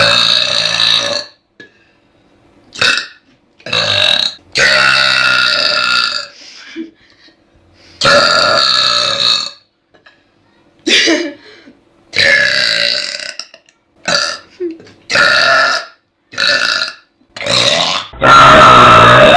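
A series of about a dozen loud, deliberate burps in a row, some short and some drawn out for a second or more, forced up from gas after gulping Coca-Cola.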